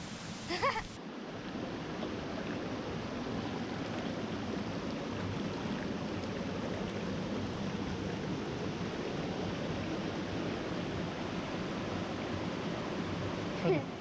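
Steady rush of a flowing stream, even and unbroken, after a brief bit of a man's voice at the start.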